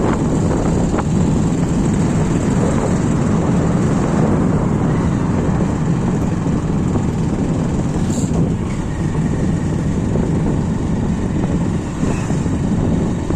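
Steady running noise of a moving vehicle: a continuous low engine hum under road and rushing noise.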